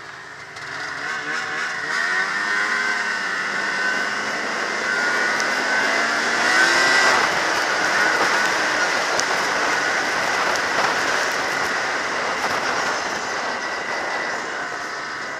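Ski-Doo MX Z 700 snowmobile's two-stroke twin engine running under throttle, its pitch rising as it revs up about a second in and again around the middle, over a steady rush of wind noise.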